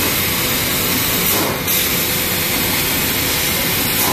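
Trumpf laser cutting machine running while it cuts 2 mm aluminium sheet: a steady hissing roar, with the high hiss changing briefly twice, about a second and a half in and near the end.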